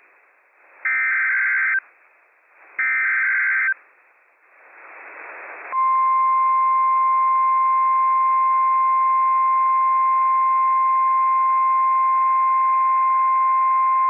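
NOAA Weather Radio Emergency Alert System signal: two short bursts of SAME header data, each about a second long and a second apart, then a brief rising hiss, then the 1050 Hz warning alarm tone starting about six seconds in as one steady high-pitched tone.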